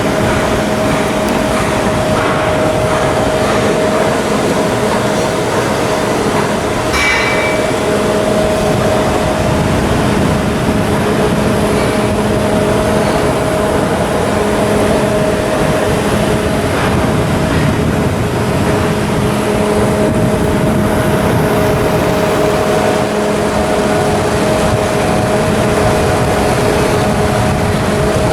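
Ship's diesel engine running at a steady speed, a loud constant machine hum with several fixed tones. A single metallic clank sounds about seven seconds in.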